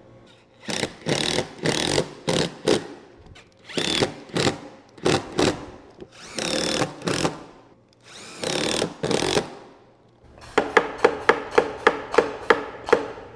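Cordless power driver running in short bursts of under a second to about a second, driving screws to fasten a pneumatic clamp down onto a wooden jig base. Near the end, a steady run of sharp clicks, about four a second, over a low hum.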